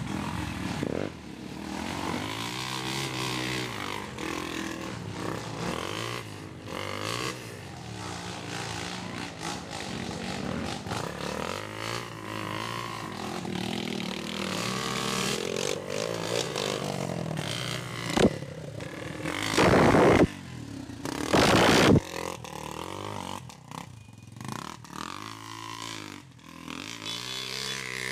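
Trail motorcycle engine revving up and down through mud, its pitch rising and falling. About two-thirds of the way through come a few short, much louder rushing bursts.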